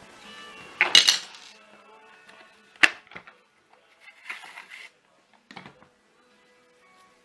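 Hard plastic parts of a Vax Blade vacuum floor head being handled as its end cap comes off and its brush bar is pulled out: a loud scrape about a second in, a sharp click near three seconds, then a rustle and a light knock.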